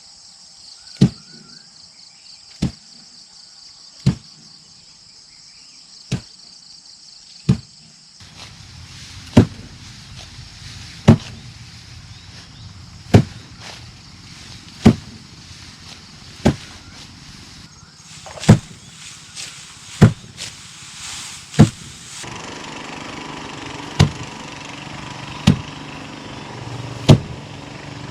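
A hand tool striking hard blows at a steady working pace, about one every one and a half seconds. Insects chirr behind the first part, and a steady engine-like hum joins in near the end.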